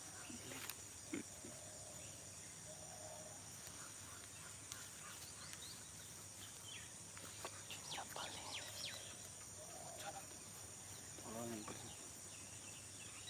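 Faint outdoor field ambience: a steady high-pitched insect drone, with scattered short bird chirps and faint distant voices.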